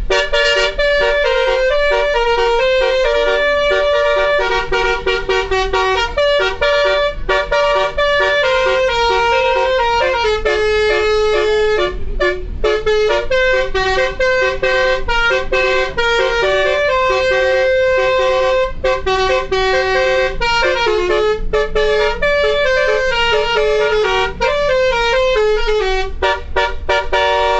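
Basuri melodic horn on a tour bus: a module-driven set of air horns playing a fast tune of short, pitched blasts that step up and down in pitch several times a second, with brief breaks between phrases.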